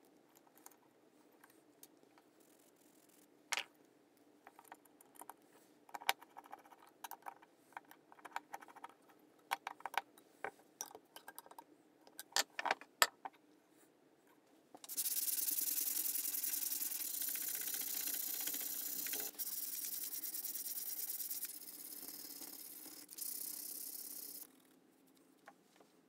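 Metal parts of a vintage Anchor hand plane being handled and fitted: scattered light clicks and taps, in a quick cluster for several seconds. About fifteen seconds in a steady hiss starts, drops in level twice, and cuts off near the end.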